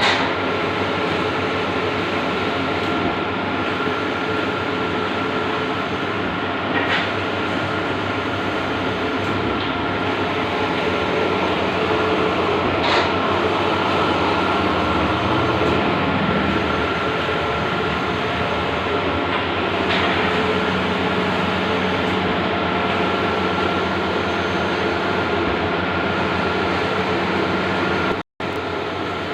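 Large-format outdoor banner printer running: a steady mechanical whir with a faint high tone, and a light sweep that recurs every three seconds or so. The sound cuts out for an instant near the end.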